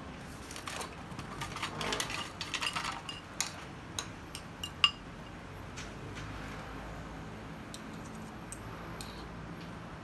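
Metal spoon and fork scraping and clinking against a ceramic bowl while scooping rice, a run of sharp clinks in the first half with the loudest about five seconds in, then quieter.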